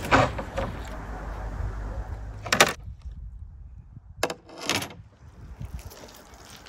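Long metal kebab skewers being pulled out of tandoor-roasted lamb ribs: a few short metallic scrapes as the blades slide through the meat and against the tray.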